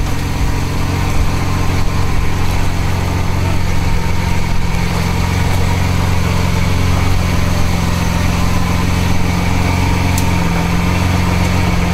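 Lamborghini Veneno's V12 engine idling steadily, an even low drone that holds without revving.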